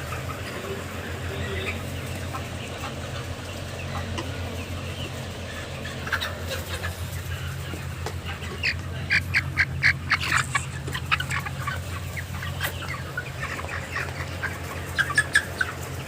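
A flock of chickens clucking and calling, with louder runs of quick, rapid calls about two-thirds of the way through and again near the end, over a steady low hum.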